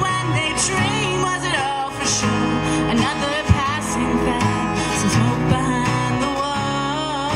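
A woman singing live, accompanying herself on a strummed acoustic guitar. A single brief thump comes about halfway through.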